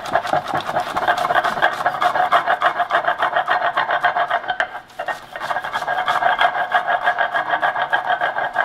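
Stone mano scraped rapidly back and forth across a stone metate, grinding cacao paste: a fast, even rasping rhythm that pauses briefly about halfway through. This is the fast final grind that refines the liquid cacao paste until it is silky smooth.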